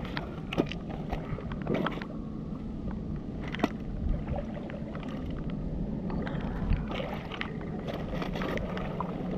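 A steady low rumble with scattered sharp clicks of stones and shingle being moved about on a river foreshore.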